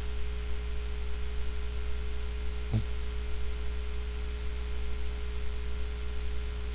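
Steady low electrical hum on a voice-call line, with a faint steady tone above it. About three seconds in comes one short, low snore.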